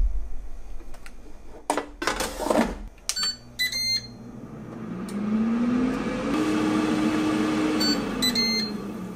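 Ninja 4-quart air fryer: a couple of knocks, then the control panel beeps and the fan whirs up to speed with a rising hum. Near the end it beeps again, the cycle finishing with 'End' on the display, and the fan hum falls away.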